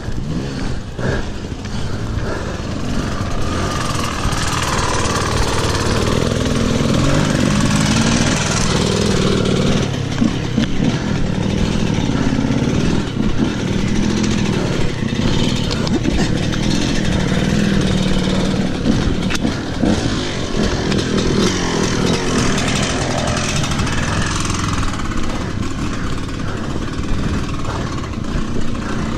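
Mountain bike riding over a dirt and gravel track, recorded close to the rider: a loud, steady rumble of tyres on the dirt with constant rattling of the bike, and wind noise on the microphone.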